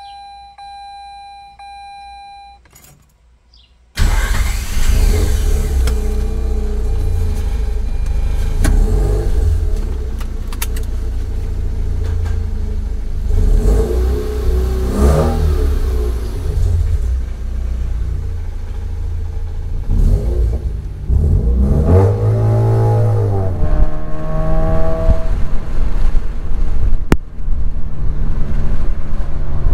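A faint steady electronic beep tone, then about four seconds in a sudden change to the Mazda RX-8's Renesis rotary engine running with heavy low road rumble as the car is driven. The engine pitch rises and falls a few times about two-thirds of the way through.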